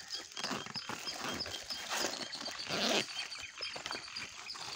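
A fabric shoe bag and its plastic wrapping rustling as the side zip is worked, with a louder rasp about two and three seconds in. Under it, steady short high chirps repeat about two or three times a second.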